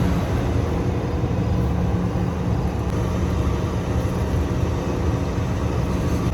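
Heavy farm machinery engine running steadily, a deep, even drone.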